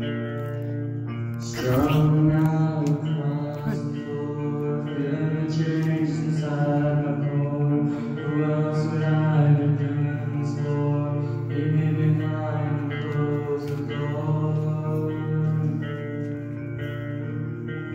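A song performed live by a solo guitarist on stage, heard from far back in a large auditorium. Sustained notes ring throughout, and a louder, fuller part comes in about two seconds in.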